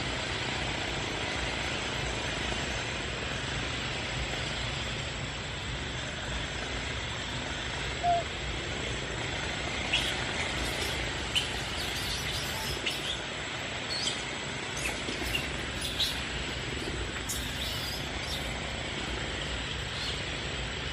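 Steady outdoor forest background noise with a low rumble. From about ten seconds in there are scattered short high chirps and clicks, typical of small birds calling, and a single brief pitched sound just before that is the loudest moment.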